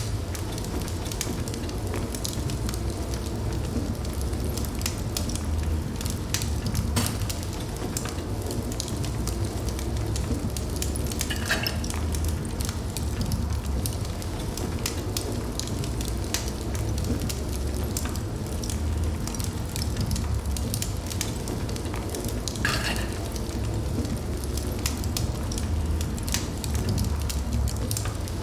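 Wood fire burning in a fireplace: a steady low rumble of flames with irregular crackles and pops, and two brief hisses, about twelve and twenty-three seconds in.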